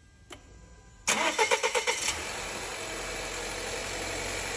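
A Volvo XC90 2.0T four-cylinder engine is cranked by the starter for about a second, catches and settles into a steady idle. This is the first start after a new timing belt has been fitted.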